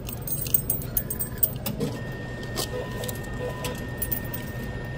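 Self-checkout cash handling: the machine's bill acceptor and dispenser clicking and running, with a faint steady high tone coming in about halfway, over a steady low hum.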